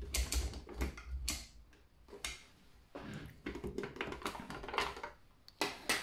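Gaggia MDF grinder's grind-adjustment ring being turned by hand towards a finer setting, clicking through its detent steps in an irregular run of ticks.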